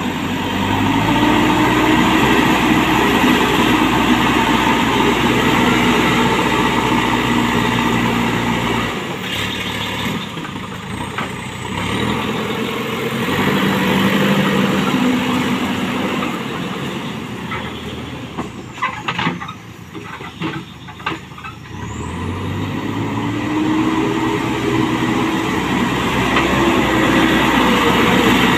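JCB backhoe loader's diesel engine working under load as the front bucket pushes soil along a dirt track, its pitch rising and falling as the throttle opens and eases. A few sharp knocks come about two-thirds of the way through, while the engine is throttled back, and the engine then picks up again.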